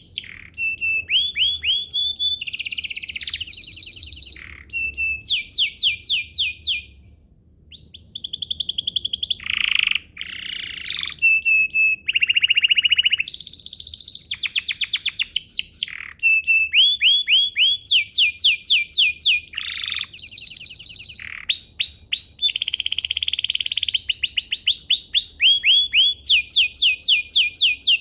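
Domestic canary singing a long, almost unbroken song of rapid trills and fast repeated-note phrases, with a short pause about seven seconds in.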